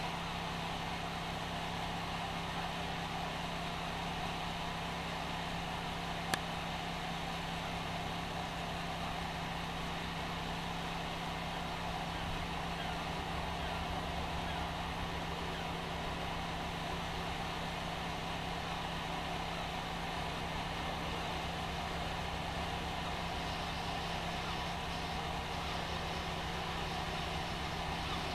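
An engine running steadily with a constant low hum. A single sharp click comes about six seconds in.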